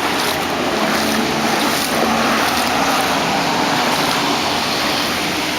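Floodwater sloshing and splashing steadily around the legs of someone wading through a flooded street.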